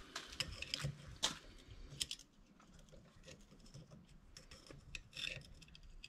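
Faint small metal clicks and scraping as a screwdriver works the spring-loaded pushers and rollers into a small-engine starter overrunning clutch. The clicks come irregularly, mostly in the first two seconds, with a few more near the end.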